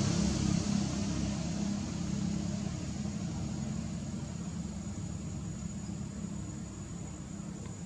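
A steady engine rumble with a low hum, slowly fading away over several seconds.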